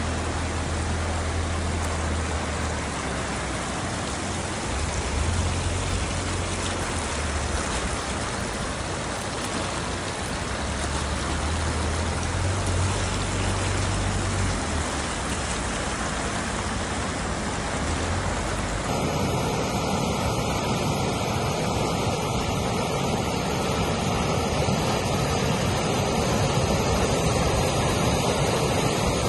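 Floodwater rushing as a steady noise of moving water, with low rumbling wind on the phone's microphone in the first part. About two-thirds through it cuts to a different recording of a brown torrent pouring down over a bank.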